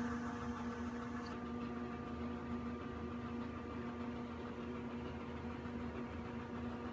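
Steady background hum with a faint hiss: one low tone and a few fainter higher ones, unchanging throughout.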